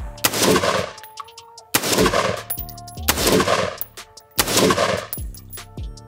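Budget 10.5-inch AR pistol in 5.56 firing four single shots about a second and a half apart, each a sharp crack with a long ringing echo. These are the gun's first rounds ever, fired dry without oil, and it cycles each time.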